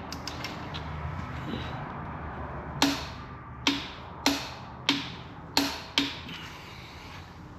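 Click-type torque wrench breaking over on a 3.5 EcoBoost main bearing cap bolt set to 100 foot-pounds: six sharp metallic clicks in quick succession, starting about three seconds in.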